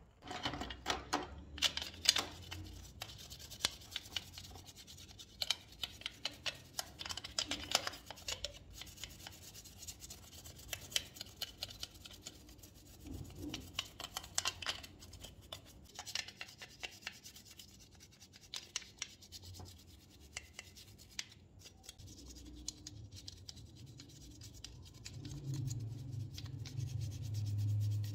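Cotton swab scrubbing foam-covered toy car parts: repeated scratchy rubbing strokes. A low hum comes in near the end.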